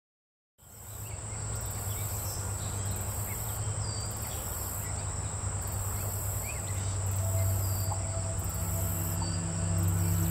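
Meadow ambience fading in from silence: insects trilling in a steady high buzz, with a second insect chirping in regular bursts about once a second, a few faint bird chirps and a low steady rumble. Soft sustained music notes come in over the last few seconds.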